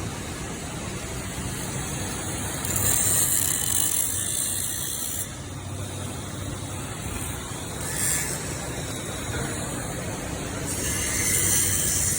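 A steady low mechanical hum with bursts of hissing: one about three seconds in lasting a couple of seconds, a short one past the middle, and another near the end.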